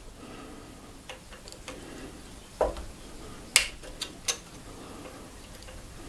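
A handful of light metallic clicks and taps from long nose pliers, a small screwdriver and a bike's hydraulic disc brake caliper pad pin being handled while the pads are removed. There is a duller knock about two and a half seconds in and the sharpest click about a second later.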